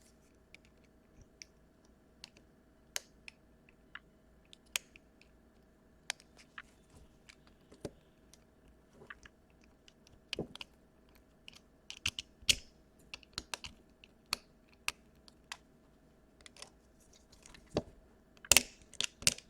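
Small scattered clicks and scratches of a hand tool picking glue off the laptop power jack's wires, coming more often near the end, over a faint steady hum.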